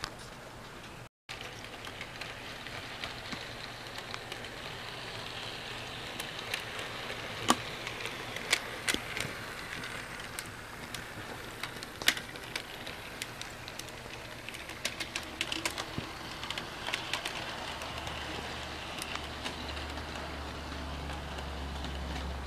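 HO scale model train running on its track: a steady electric whir with many irregular sharp clicks from the wheels on the rails and joints, and a low rumble added near the end.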